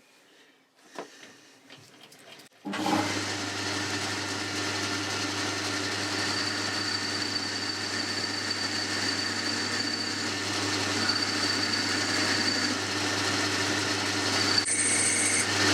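Boxford lathe switched on about three seconds in and running steadily, a motor hum with a high whine that comes and goes, as the end of a mild steel bar is turned to put a lead on it for a threading die. A few small knocks come before it starts.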